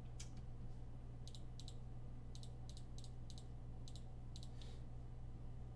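Light, quick clicking at a computer, about a dozen clicks often coming in pairs, over a steady low electrical hum.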